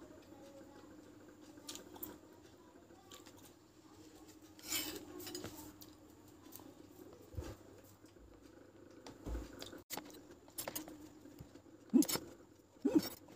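Metal fork and spoon stirring and scraping in a paper cup of instant bakso aci soup, with small clinks and scattered eating sounds. The sharpest clicks come near the end.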